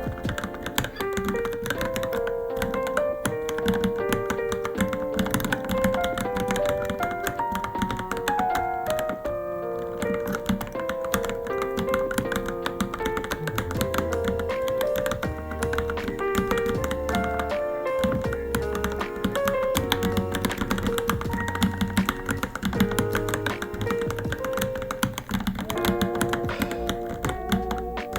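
Continuous, irregular typing on a Varmilo Minilo mechanical keyboard: a dense run of key clicks, over background music with a melody and a recurring bass note.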